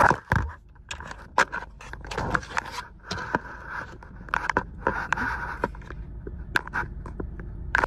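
Scraping and rustling handling noises broken up by many short, sharp clicks at uneven intervals.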